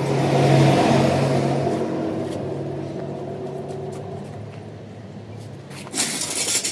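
A motor vehicle's engine passing by: it swells to its loudest about a second in, then fades away over the next few seconds. A short burst of noise comes near the end.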